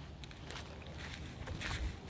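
Footsteps on loose gravel, a few irregular steps.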